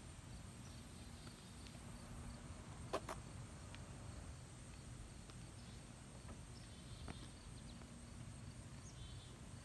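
Faint outdoor background: a steady low rumble with a few faint, short high chirps, and a sharp click about three seconds in and a softer one about seven seconds in.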